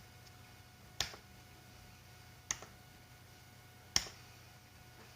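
Three sharp clicks, evenly spaced about a second and a half apart, over a low steady electrical hum.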